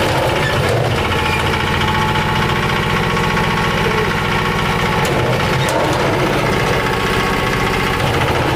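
Small diesel engine running steadily with a regular beat, driving the winch drum of a mini concrete lift as the bucket is hoisted and lowered.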